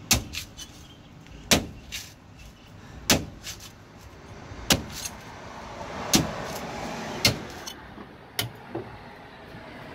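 Machete chopping into a fresh green coconut's husk: sharp hacks about every second and a half, eight in all, the last two closer together.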